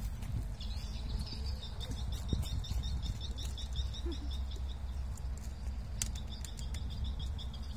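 Outdoor wind rumble on the microphone with a small animal's high chirping call repeated rapidly, about five or six chirps a second, pausing briefly past the middle, and a few light clicks.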